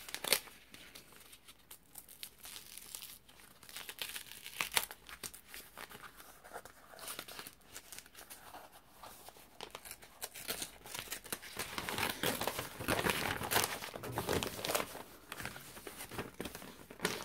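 Paper wrapping being torn open and crinkled by hand: a run of short crackles and rips, busiest and loudest from about ten to fifteen seconds in.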